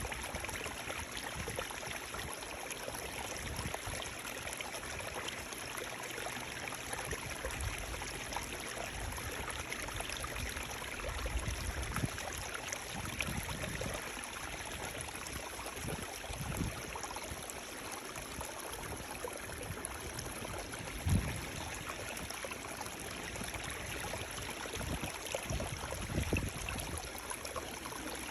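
Running water rushing steadily, with a few brief low thuds now and then.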